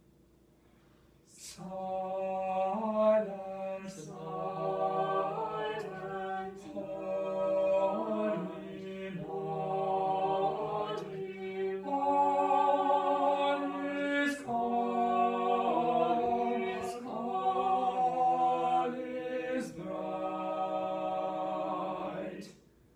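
A choir singing a cappella in slow phrases of held chords, each a few seconds long. It starts about a second and a half in and stops shortly before the end.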